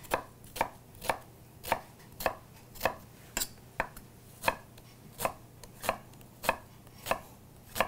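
Chef's knife chopping a peeled onion on a wooden cutting board: an even series of sharp knocks of the blade striking the board, a little under two a second, about fourteen in all.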